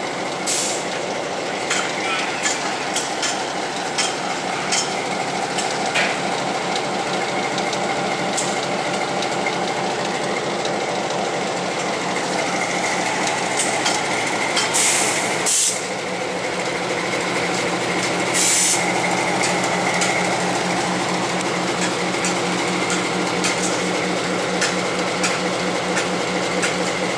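Diesel switcher locomotive's engine running steadily. Two short bursts of hissing come about halfway through, a few seconds apart.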